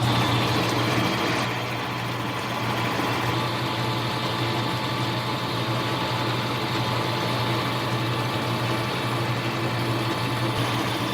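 Small hobby metal lathe running steadily with a constant motor hum, taking a turning pass at the depth just dialed in.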